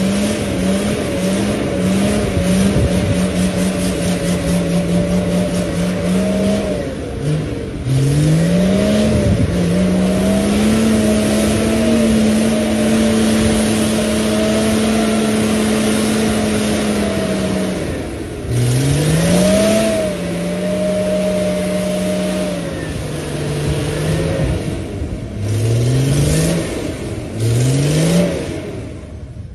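Toyota 4x4's engine revving hard through deep mud: held at high revs, with the pitch climbing sharply in about five surges and easing off between them. A broad rushing noise runs under the engine, from the spinning tyres and flung mud.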